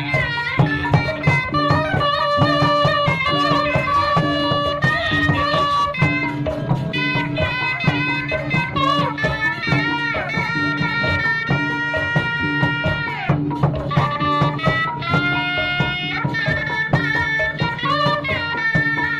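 A Sundanese percussion ensemble playing dance music: drums beating a steady pulse under a shrill reed wind instrument that carries a wavering, sliding melody.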